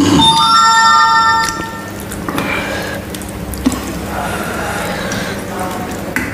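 A bright, bell-like metallic ringing of several clear tones at once, loud and lasting about two seconds from the start. It is followed by quieter sounds of eating from steel dishes.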